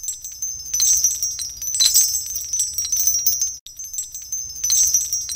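Intro jingle of high, tinkling chime sounds over a light backing. It is a short loop that cuts out briefly and starts over about three and a half seconds in.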